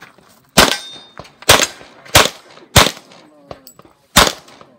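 Pistol shots fired during a timed practical shooting stage: five sharp shots, the first four a little under a second apart, then a longer pause before the fifth, each followed by a brief echo.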